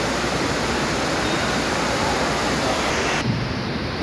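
Steady rushing of floodwater. About three seconds in it changes abruptly to a duller water sound with less hiss.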